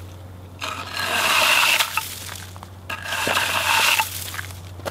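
Homemade wooden pickaxe scraping and chipping ice chunks across an asphalt driveway: two scraping strokes, each about a second long.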